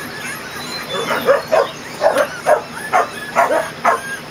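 Kerry Blue Terrier puppies, about three weeks old, yelping and whimpering in a quick run of short, high cries, about two or three a second.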